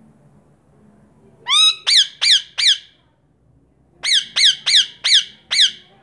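Rose-ringed (Indian ringneck) parakeet giving loud, harsh squawks in two runs: four quick calls about one and a half seconds in, then six more from about four seconds in, each call dropping in pitch.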